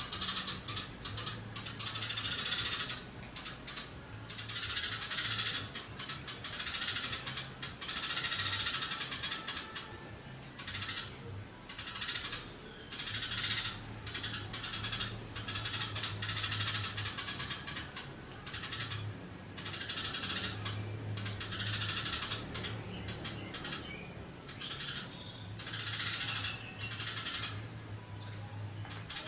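Eurasian tree sparrow chattering in long, rapid runs of chirps, one run after another with short breaks between.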